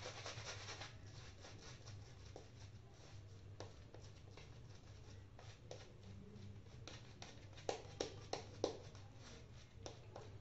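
Shaving brush working lather over the neck and face: faint rubbing and swishing with small wet clicks, a few louder ones close together about three-quarters of the way through.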